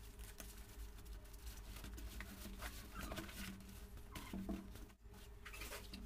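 Faint handling noise from a nylon backpack: fabric rustling and small clicks as hands rummage in it and work the zipper. A few short, low whines sound over it, the loudest about halfway through.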